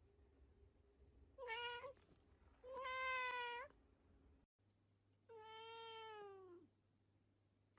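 A domestic cat meowing three times: a short meow, a longer one, then a drawn-out meow that falls in pitch at the end.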